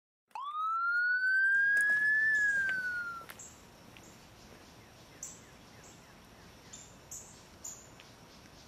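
Police siren giving a single wail: it rises over about two seconds, dips briefly and cuts off about three seconds in. After it comes a faint outdoor background with a few short, high chirps.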